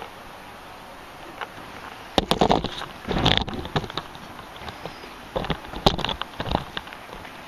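Camera handling noise: bumps, clicks and rustling as the camera is moved and a person's clothing brushes close to the microphone, in two short clusters about two seconds in and again about five seconds in.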